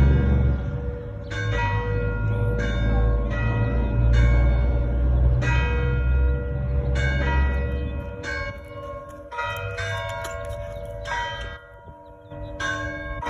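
Church bells ringing: several bells struck one after another in an uneven succession, one or two strikes a second, each note ringing on as the next comes in. A low rumble runs under the first part, and the strikes briefly thin out near the end.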